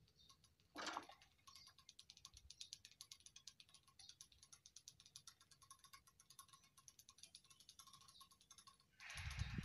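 PZM-2 mechanical level-crossing barriers being raised: a fast, even clicking and rattling from the barrier gear, opening with a louder clack about a second in. A louder rush of noise comes in near the end.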